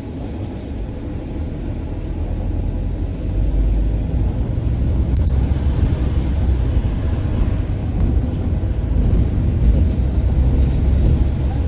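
Bus in motion heard from inside the cabin: a steady low engine and road rumble that grows louder over the first three seconds or so, then holds steady.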